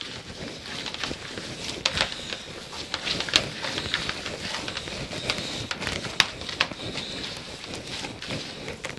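Gloved hands mixing and kneading a raw ground-meat meatball mixture in a plastic bowl: irregular squishing and slapping, with a few sharp clicks.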